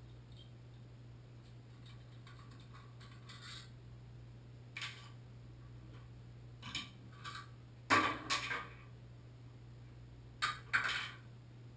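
Scattered metal clinks, knocks and scrapes as the chrome trim plate and handle of a Moen Posi-Temp shower valve are taken off and set down in the bathtub. The loudest knock comes about eight seconds in, with another quick cluster of clinks near the end.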